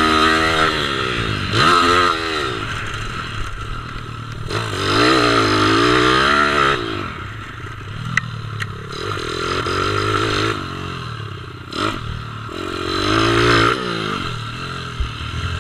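Kawasaki KLX110's small single-cylinder four-stroke engine revving up and dropping back again and again as the pit bike is ridden around a dirt track, about five throttle rises in all. A few sharp clicks come midway.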